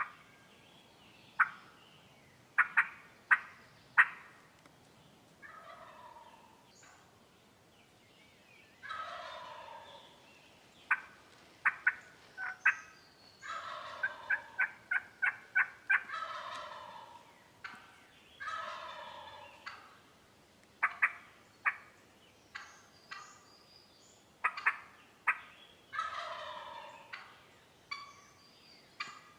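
Turkey calls: several gobbles, each a rattling call falling in pitch over about a second, among many short, sharp clucks that come singly and in quick runs.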